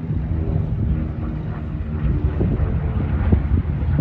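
Boeing B-29 Superfortress's four Wright R-3350 radial engines running steadily in a low flyby, a hum of several pitches, with wind rumbling on the microphone.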